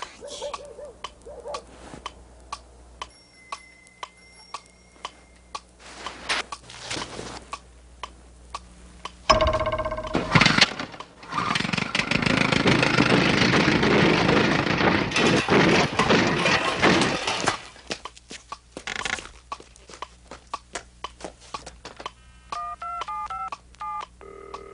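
A clock ticking steadily, about two ticks a second. About nine seconds in, a sudden loud outburst turns into a loud rushing noise that lasts roughly seven seconds before the ticking returns. Near the end come short touch-tone telephone dialing beeps.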